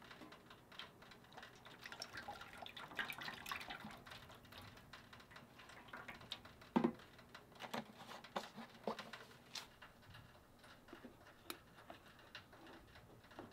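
Canola oil pouring from a plastic jug into an empty stainless-steel electric deep fryer, faintly. Afterwards come a few light knocks and clicks, the loudest about seven seconds in.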